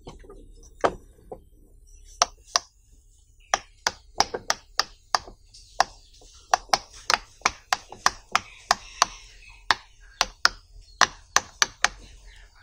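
Silicone pop it fidget toy's bubbles being pressed in one after another, a string of sharp little pops at an uneven pace, about three a second.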